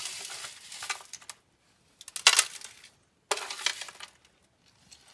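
Dry pasta and rice being scooped from a foil-lined tray and dropped into a disposable plastic glove: crinkling foil, rattling dry pasta and rustling plastic. It comes in three bursts, the loudest about two seconds in.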